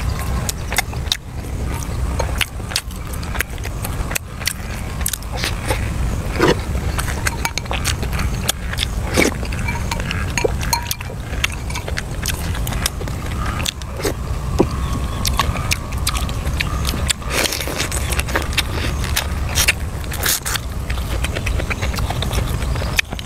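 A person chewing and biting food close to the microphone, with many sharp, irregular mouth clicks and smacks over a steady low rumble.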